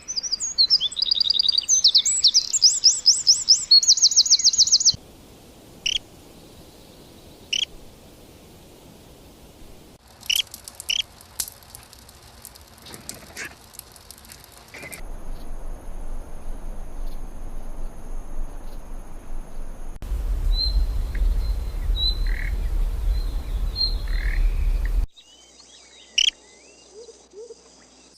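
A string of short bird recordings spliced together, changing abruptly about every five seconds. It opens with a loud rapid series of high chirps and trills, then sparser single calls and chips. Later come steady high whines with a low rumble under bird calls.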